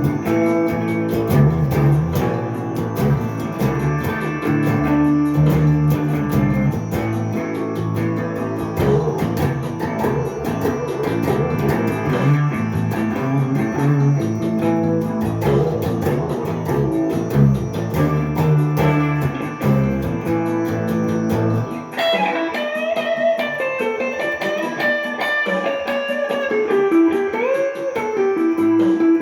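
Gibson ES-339 Custom semi-hollow electric guitar improvising in a jazzy style with an oriental, Indian colouring. Low notes sound beneath the melody until about three-quarters of the way through. After that the guitar plays alone, with single notes bent and slid up and down in pitch.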